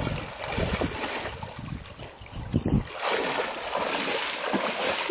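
Water splashing and sloshing as a person wades through knee-deep lake water, the splashes louder from about three seconds in as the strides quicken toward the bank.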